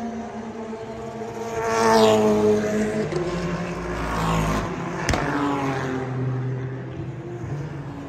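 Super GT race cars passing one after another on the pit straight. Each engine's note falls in pitch as it goes by, and the loudest pass comes about two seconds in. A sharp click sounds about five seconds in.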